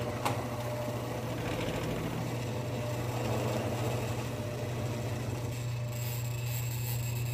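Mill-drill motor and spindle running steadily, with a constant low hum, as an end mill plunges into the degree dial to counterbore a bolt hole.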